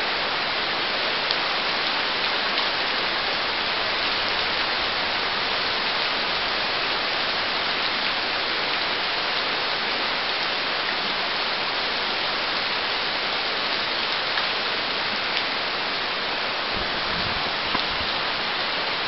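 Steady rain falling, an even hiss with a faint click or two.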